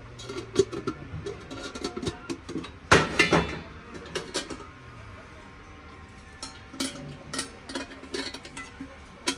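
Brass containers and lids clinking and knocking against each other as they are handled, opened and set down, with one loud metallic clank about three seconds in.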